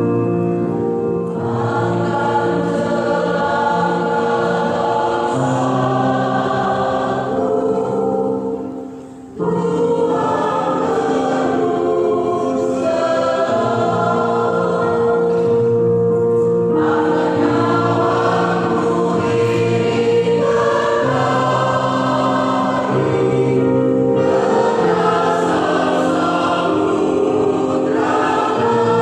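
Church choir singing a gospel song in held, multi-part chords, with a short break in the singing about nine seconds in.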